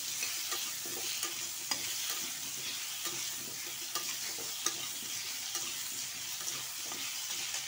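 Potato chunks sizzling steadily in hot mustard oil in a kadai, stirred with a spatula that clicks and scrapes against the pan now and then.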